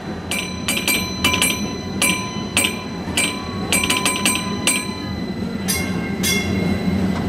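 Trolley gong bell clanging in a quick irregular series of about a dozen strikes as its cord is pulled, then two more longer-ringing strikes after a short pause near the end. Under it runs the steady low rumble of the electric trolley rolling on its rails.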